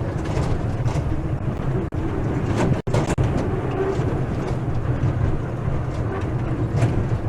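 Theme-park ride train running, a steady low rumble that cuts out briefly twice, about two and three seconds in.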